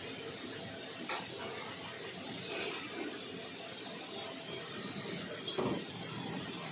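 Steady hissing machinery noise, with a sharp click about a second in and a short knock near the end.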